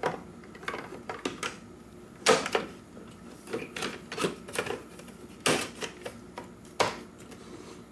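Plastic top cover of an iRobot Roomba 700-series robot vacuum being handled and seated onto the chassis: a scatter of irregular plastic clicks and knocks, three of them sharper than the rest.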